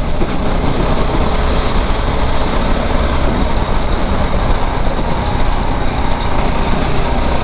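A 9 hp kart engine running steadily under way: a constant low drone with a rush of noise over it.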